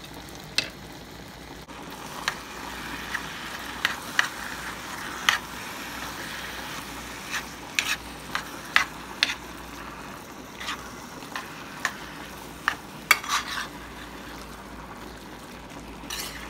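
Ground beef with chopped bell pepper and onion sizzling in a skillet as it is stirred and broken apart. The utensil clicks and scrapes against the pan about once or twice a second.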